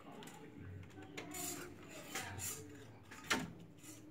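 A few light clinks and knocks, the sharpest about three seconds in.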